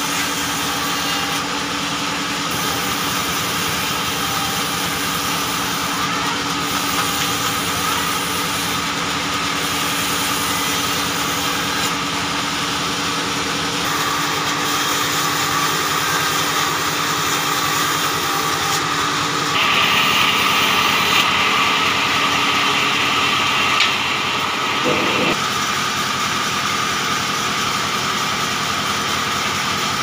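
Belt-driven band saw running steadily while it rips acacia boards: a continuous machine hum with a steady high tone. For several seconds past the middle the cutting grows louder and harsher.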